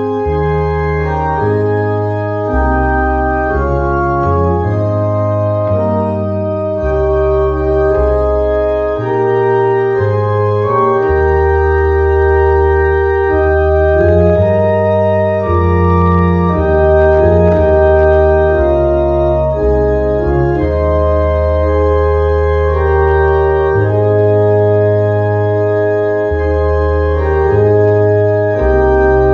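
Two-manual electronic organ playing held chords in church style, with a pedal bass line that changes every second or two.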